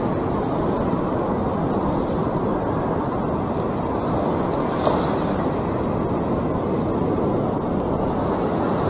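Steady rushing noise of ocean surf and wind at the microphone, even and unbroken.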